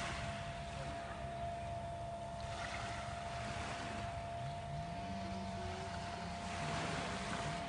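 Small sea waves washing onto the beach, swelling three times about three to four seconds apart, over a steady low hum.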